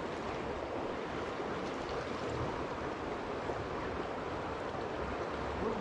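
Creek water rushing steadily through a fast riffle, an even wash of noise.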